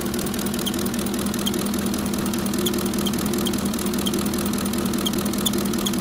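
Ford 5.4 L 3-valve Triton V8 idling at low RPM, with short high chirps breaking through the engine's steady hum several times at uneven intervals. The chirp is combustion gas squeaking past the number 7 spark plug, which is not seating.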